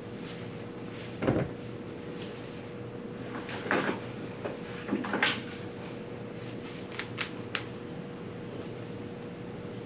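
A few separate knocks and thuds, then three quick sharp clicks, over a steady faint hum.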